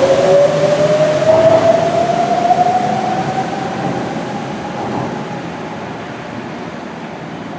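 Rubber-tyred Sapporo subway train pulling out of the station, its motors whining in a single tone that rises steadily as it accelerates away. The sound fades as the train recedes.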